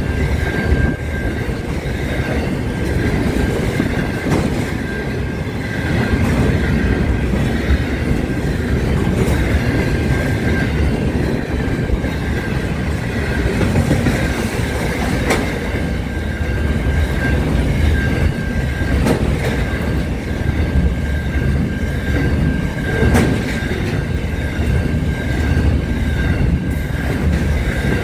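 Intermodal container freight train passing close by at speed: a steady, heavy rumble of wagon wheels on the rails, with a few sharp clacks. A thin, high whine comes and goes over it.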